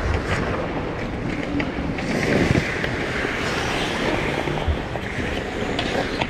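Ice skate blades gliding and scraping across a rink, with wind rushing over a GoPro microphone as it moves. The noise is steady, with a few short, sharp scrapes and a louder swish about two seconds in.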